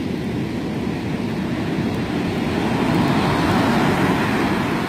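Ocean surf washing up over a sandy beach: a steady rush that swells about three seconds in and eases slightly near the end.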